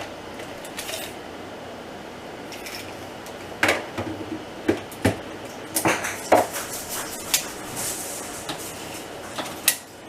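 Refrigerator contents and parts being handled: a scattered series of sharp knocks and clinks of containers, shelves and drawers, most of them in the second half.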